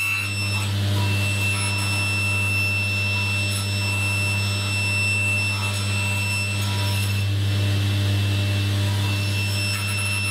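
Table saw running at speed with a steady hum and a thin, high whine.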